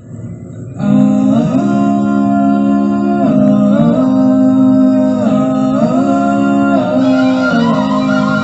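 Live music: held pitched notes over a steady low drone, with the upper line sliding down and back up in smooth glides, starting about a second in.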